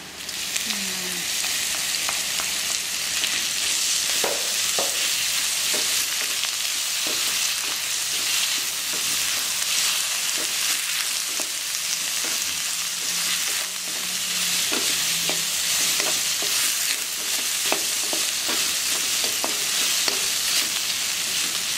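Ground red chilli paste frying with sliced shallots and garlic in hot oil in a stainless steel wok: a steady sizzle, with a wooden spatula scraping and tapping the pan now and then as it is stirred.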